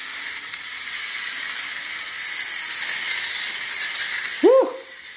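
Carrera Hybrid toy race car whirring steadily as it drives around the track, with one short squeak that rises and falls in pitch near the end.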